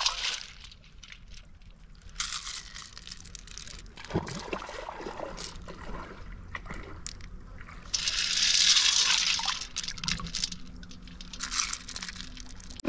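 Water sloshing and splashing in a metal pan as a pile of freshly caught river snails is stirred and rinsed by hand, in a few separate bursts.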